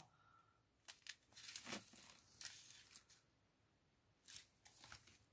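Faint crinkling of small plastic bags of diamond-painting drills being moved about by hand: a few soft, scattered rustles and ticks over near silence.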